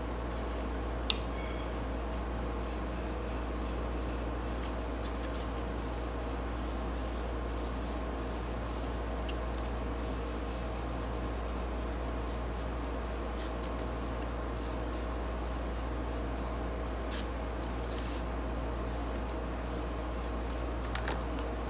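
Toothbrush bristles scrubbing solvent-wet melted rubber tire residue out of the groove of a portable bandsaw's metal wheel, in runs of quick back-and-forth strokes. There is one sharp click about a second in.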